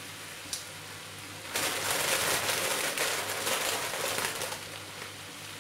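Plastic bag of spinach crinkling and rustling as handfuls of leaves are pulled out, loudest for about three seconds from a second and a half in. Under it, the frying pan gives a faint steady sizzle.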